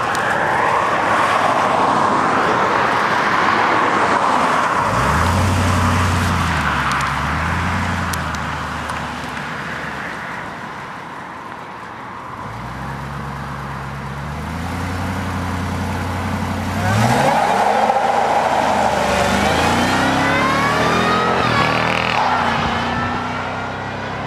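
A Ford Lightning pickup's V8 at full throttle for a burnout on new tyres: a broad rushing tyre noise at first, then the engine note climbs in steps as it accelerates through the gears, twice over. Higher squealing lines come in over the last several seconds.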